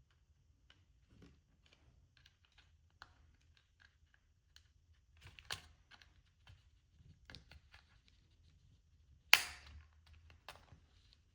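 Plastic casing of an LG Magic Remote being handled and pried apart: scattered small plastic clicks and ticks, with one sharp snap about nine seconds in.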